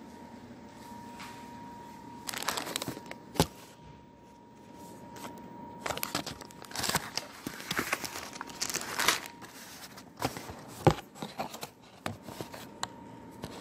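Irregular crinkling and rustling handling noises with scattered clicks and two sharp knocks, from kitchen work with the peeled potatoes, over a faint steady whine.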